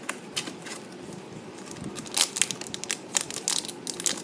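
Trading-card booster pack's foil wrapper crinkling and crackling as it is handled and torn open: scattered sharp crinkles, denser and louder from about halfway.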